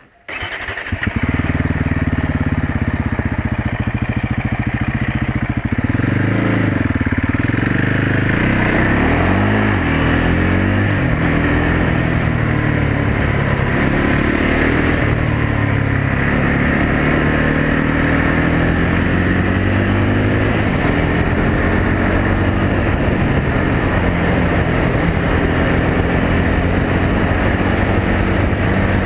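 Can-Am DS 450 quad's single-cylinder four-stroke engine starting just after the beginning and idling steadily for a few seconds. Its revs then rise and fall over and over as the quad rides along.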